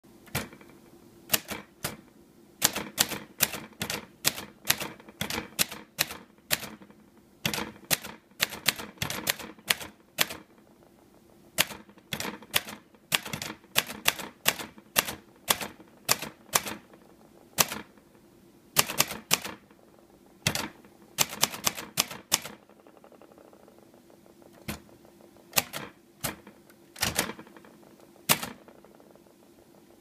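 Old manual typewriter typing: irregular runs of sharp key strikes and typebar clacks, several a second with short pauses between words. Near the end come a few separate, spaced strokes as the exclamation point is made by striking an apostrophe, backspacing and striking a period over it.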